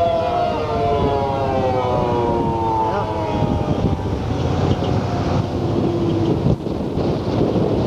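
Outdoor civil defense siren sounding a tornado warning, winding down with its pitch falling steadily until it fades out about six seconds in. Heavy wind noise runs on the microphone throughout.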